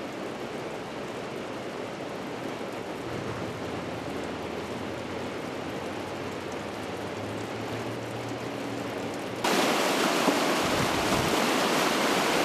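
Steady rushing of floodwater. About three-quarters of the way through it jumps suddenly louder and brighter, the roar of a swollen creek in flood.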